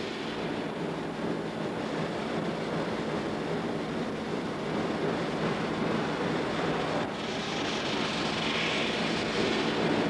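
Steady rushing background noise with a faint low hum, and a single faint click about seven seconds in.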